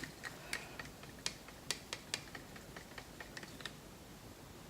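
Light, sharp clicks and taps at an irregular pace, about a dozen of them, from acrylic paint being thinned and stirred in a plastic cup.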